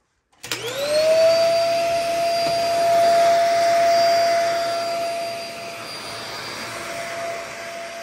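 Dyson DC50 compact upright vacuum cleaner starting up about half a second in, its motor whine rising quickly to a steady high pitch, then running while it is pushed over carpet. It is loudest for the first few seconds and gets somewhat quieter after about five seconds.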